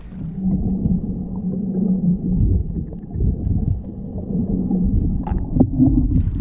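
Muffled underwater audio: rushing, gurgling water with a low hum and rumble, and a few short clicks about five seconds in.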